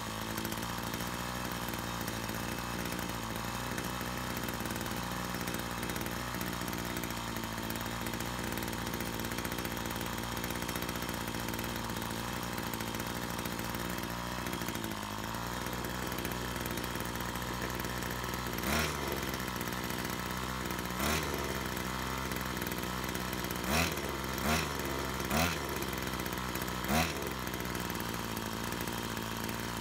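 Small two-stroke brush cutter engine running at a steady idle, then blipped up briefly about six times in the second half. It runs after a split fuel hose that had leaked fuel was dealt with.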